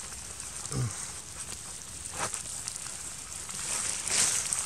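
Rustling of a puffy jacket and sleeping bag as a person shifts about while lying down, with a short low murmur about a second in and a louder rustle near the end.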